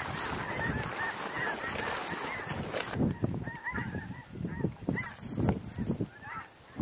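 A large flock of snow geese calling, many overlapping high honks. For the first three seconds this comes over a dense crunching hiss of footsteps through frozen, ice-coated grass, which stops suddenly. The honking is then clearer, with scattered low thumps.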